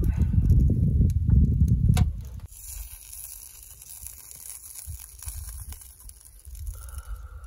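Strong wind buffeting the microphone with a loud low rumble that drops away after about two and a half seconds, leaving a steady high hiss with light crackles.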